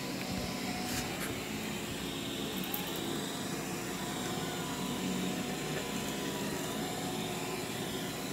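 Roborock S6 robot vacuum running on carpet: a steady whir of its suction fan and brushes, with a light click about a second in.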